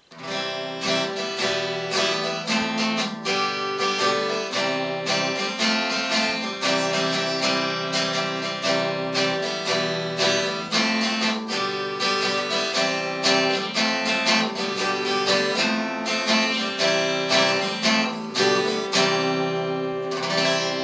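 Background music: an acoustic guitar strummed and picked at a steady rhythm.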